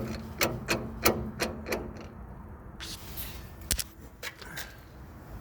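A series of sharp clicks, about three a second for the first two seconds, then a few more later, over a low steady hum.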